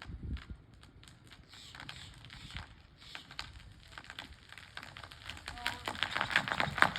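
Wood of a dead tree's trunk cracking and popping as the tree slowly tips over in a controlled fall. The sharp cracks come faster and louder toward the end.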